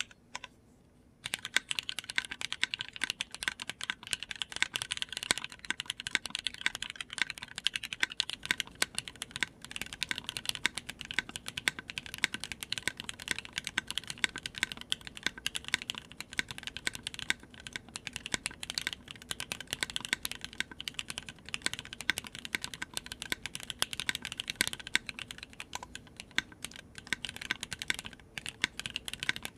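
Continuous fast typing on a Kikkou R2 custom mechanical keyboard, with lubed and filmed SP-Star Meteor White switches in an aluminium plate and DCX Hyperfuse keycaps. The irregular stream of key clacks starts about a second in.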